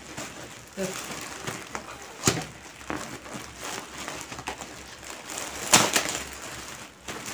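Plastic packaging crinkling and rustling as it is pulled open and off by hand, with sharp crackles about two seconds in and again near six seconds, the second the loudest.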